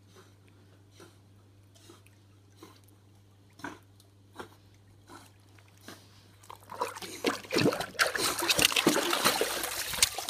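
Pool water splashing as a cattle dog swims with a foam noodle in its mouth: soft regular splashes a little more than once a second over a steady low hum, then loud, close splashing and sloshing from about seven seconds in as the dog reaches the pool edge.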